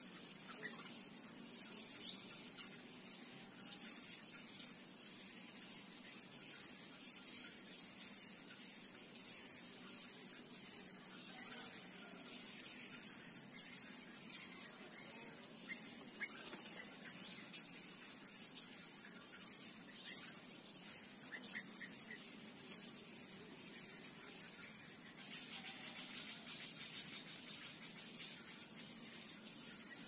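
Garden ambience: a high-pitched tone pulsing evenly a little over once a second, with a few short bird chirps.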